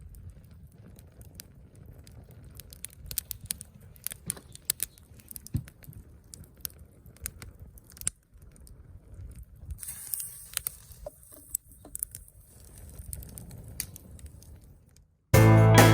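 Wood fire crackling and popping in irregular sharp snaps over a low wind rumble, with a brief hiss about ten seconds in. Music cuts in near the end.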